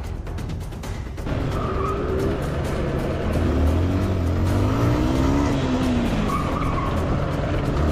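Motorcycle engine running, its pitch rising and falling as the throttle changes, over background music.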